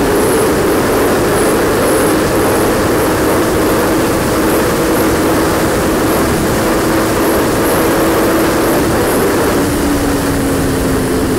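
Yamaha R1 inline-four sportbike engine held at high revs near top speed, its note steady under a loud rush of wind noise. The engine pitch shifts right at the start and slides slightly lower near the end.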